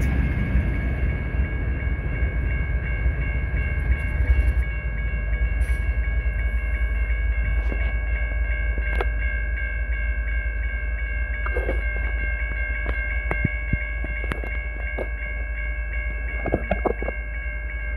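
Railroad crossing bells ringing steadily on a cantilever signal with two bells, one of them bent and broken, over a low rumble. Sharp clicks and knocks come through now and then, and the ringing stops near the end as the gates lift.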